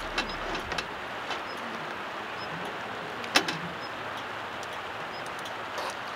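Steady rushing of river water, with a few sharp clicks, the loudest about three seconds in.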